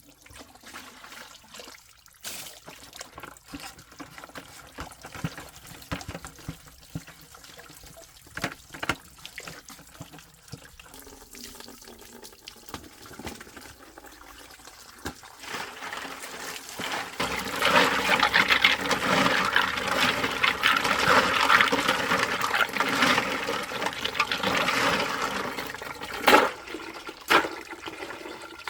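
Water splashing and trickling, with scattered small knocks. A little past halfway it swells into a louder rush of water that lasts about ten seconds. Two sharp knocks come near the end.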